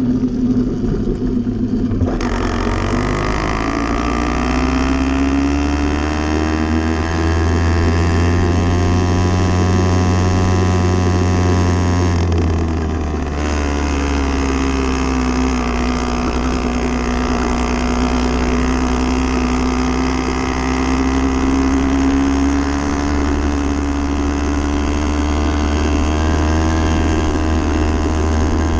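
80cc motorbike engine running under way, its pitch climbing over the first few seconds, dropping briefly about halfway through as it eases off, then slowly rising again.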